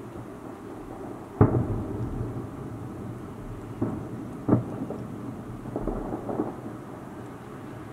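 Distant fireworks salute shells bursting from about 7 km away, heard as a series of dull booms that each trail off in a low rumble like thunder. The loudest comes about a second and a half in, with a few weaker ones around the middle.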